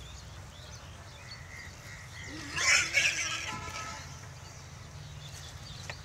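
A single harsh animal call lasting about a second, some two and a half seconds in, over a steady low hum.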